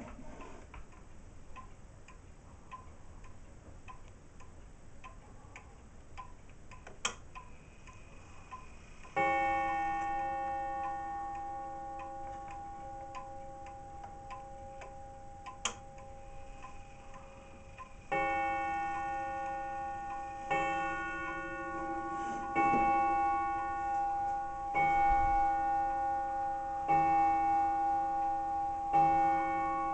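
Gustav Becker pendulum wall clock ticking steadily, then striking on its gong. One ringing strike comes about nine seconds in, and a run of strikes about two seconds apart starts about halfway through, each note ringing on into the next.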